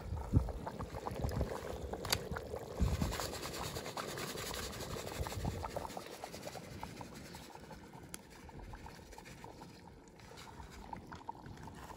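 Plov base (zirvak) of fried meat, onion and carrot with freshly added boiling water bubbling in a 10-litre kazan over a high wood fire, with many small pops and crackles. It grows quieter in the second half.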